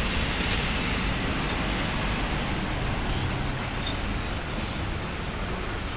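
A Mercedes-Benz coach drives past close by and pulls away, its engine and tyre noise over steady road traffic, slowly getting a little quieter.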